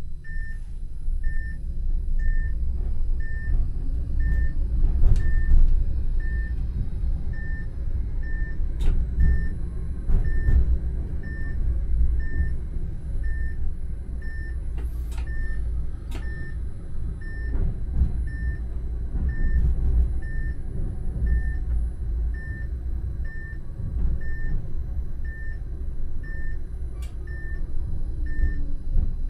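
Inside the driver's cab of a Vario low-floor tram running slowly: a steady low rumble from the running gear, scattered clicks and knocks from the wheels on the track, and a short high beep that repeats about once a second.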